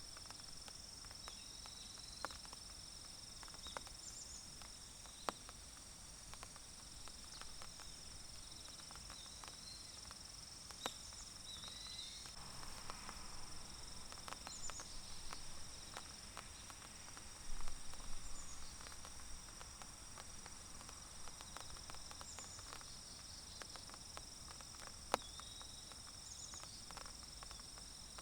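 Forest ambience: a steady high insect chorus at two pitches, with scattered sharp ticks of raindrops falling on leaves in light rain and occasional short high chirps.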